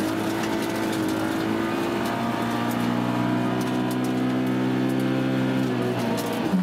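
Suzuki Swift rally car's engine heard from inside the cabin, pulling hard in gear with its pitch slowly rising, then falling sharply near the end as the revs drop.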